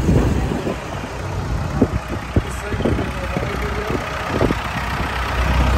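Tractor engines running as decorated tractors drive slowly past, a steady low hum, with two short sharp clicks about two seconds in.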